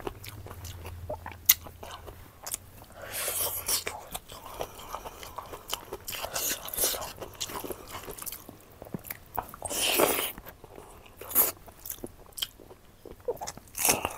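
Close-up mouth sounds of a person eating: chewing and biting with wet clicks and smacks, and a few longer noisy bursts about three and ten seconds in.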